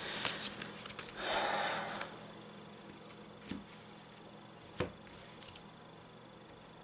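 Yu-Gi-Oh! trading cards being handled: a longer rustle of cards sliding against each other about a second in, then a few soft isolated taps as single cards are set down on a playmat.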